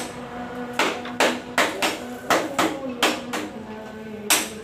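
Hammer blows on steel, irregular, about two a second, each ringing briefly, as a hole is knocked through the truck cab roof's sheet-metal mounting bracket. A steady low hum runs underneath.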